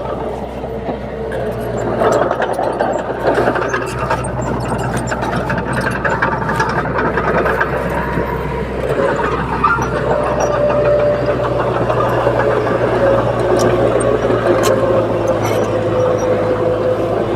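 Komatsu D21P bulldozer's diesel engine running steadily as it works, with the clatter of its steel tracks.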